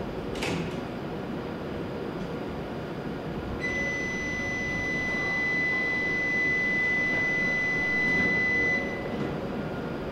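A single steady high electronic tone starts suddenly about three and a half seconds in and cuts off about five seconds later, over a constant platform hum. It is the departure signal sounding before the Shinkansen pulls out. A brief click comes near the start.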